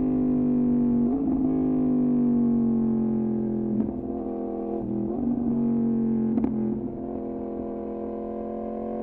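Yamaha MT-10's crossplane inline-four through an Austin Racing exhaust, running at steady part-throttle with the note sinking slowly as the revs ease off. The note is broken briefly by short throttle changes about a second in and again around four, five and six and a half seconds.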